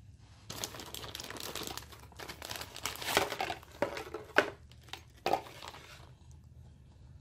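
Clear plastic bag crinkling and rustling as a wiring harness is pulled out of it. It comes in irregular bursts with a few sharper, louder crackles midway and stops about six seconds in.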